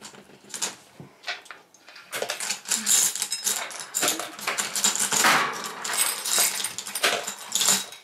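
Small seashells and pebbles clattering as they are dropped into a plastic bottle: a few scattered clicks at first, then a busy run of clicks and rattles from about two seconds in.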